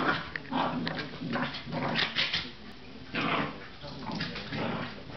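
Two corgis play-fighting, growling at each other in a quick, irregular string of short rough bursts.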